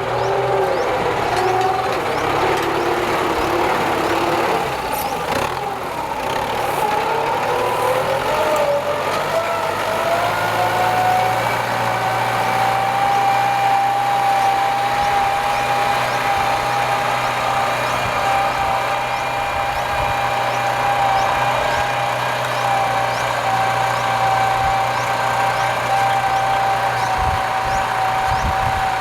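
Kubota M9540 tractor's diesel engine running. Its pitch shifts and rises over the first ten seconds or so, then holds steady.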